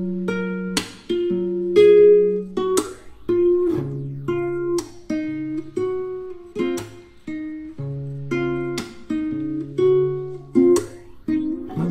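Background music: guitar chords strummed roughly once a second over held low notes.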